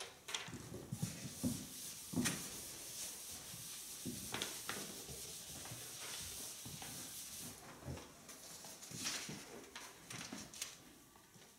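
Chalk writing on a chalkboard: a long stretch of dry scratching with short taps and clicks of the chalk against the board.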